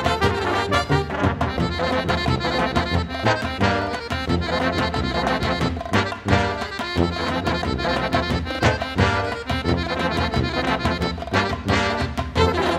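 Background music with brass instruments and a steady beat.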